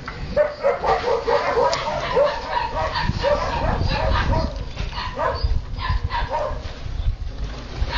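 Husky puppies giving short high-pitched yips and whimpers as they jostle at a food bowl. There is a quick run of calls in the first two seconds, then scattered single ones.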